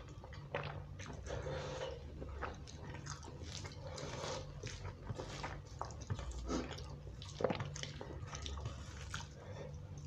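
Close-up mukbang eating sounds: wet chewing and mouth smacking of bhuna khichuri rice, mixed with fingers squishing and scraping rice on a steel plate. A string of irregular soft clicks, with a few sharper ones.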